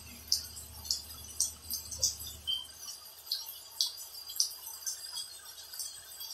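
Raindrops dripping: light, sharp ticks at uneven spacing, about two a second. A low rumble underneath stops about three seconds in.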